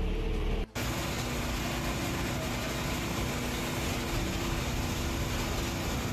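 Steady vehicle engine hum over street noise, with a brief break in the sound just under a second in.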